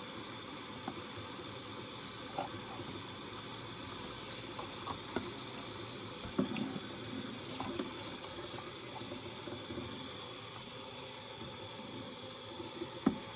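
Kitchen faucet running steadily into the sink while dishes are washed, with a few light clinks and knocks of dishes scattered through.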